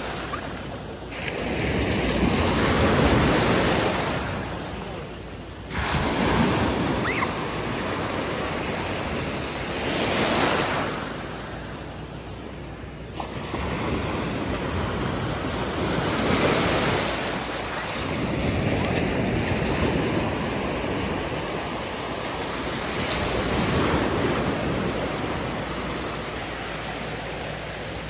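Small waves breaking and washing up on a sandy beach, the surf swelling and fading every few seconds.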